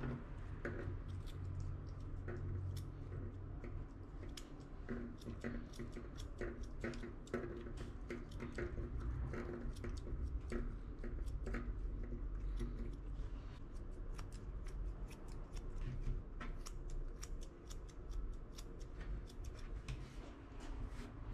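Grooming scissors snipping a Shih Tzu puppy's hair: many short, sharp snips in quick, irregular runs over a low steady hum.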